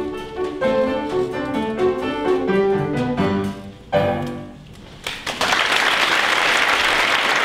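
Piano playing the closing bars of a choir piece, ending on a loud final chord about four seconds in that dies away. Audience applause breaks out about a second later.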